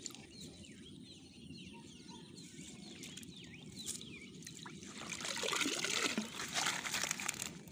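Water trickling and dripping from a fish-filled mesh net lifted out of shallow water, growing louder and splashier from about five seconds in as the catch is tipped into a cloth bag.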